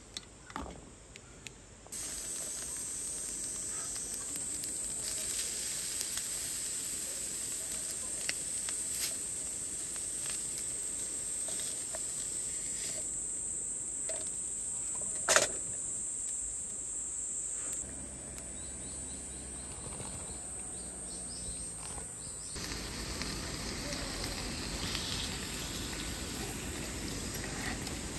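Steady hiss of a canister gas stove burner heating a pot of water until it steams, with one sharp click about halfway through.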